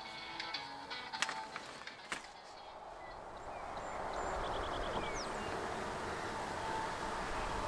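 Distant highway traffic at a roadside rest area: a steady rushing noise that swells about three seconds in, with a few faint high chirps over it.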